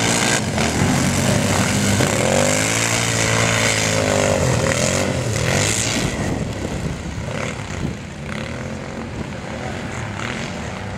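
Racing ATV engines revving hard, the engine pitch rising and then falling between about two and five seconds in, then quieter after about six seconds.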